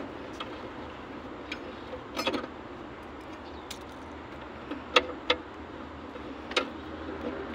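Sharp metallic clinks from a steel T-handle socket wrench and a loose socket being fitted to and worked on a bolt inside a car door, a few scattered clinks with a short cluster about two seconds in.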